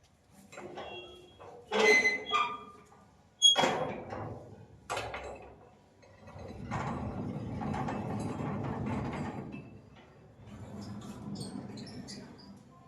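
Metal house gate being opened: a few sharp ringing clanks of the latch and frame, then a long grating scrape as the gate moves, and a second shorter scrape near the end.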